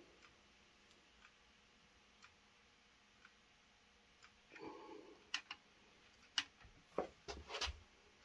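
Quiet workshop with a faint tick about once a second, then from about halfway a few sharp metallic clicks and knocks as hand tools, a socket and torque wrench, are handled.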